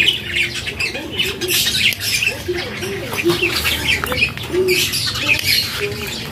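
Birds chirping busily, with repeated short, lower squawking calls mixed in.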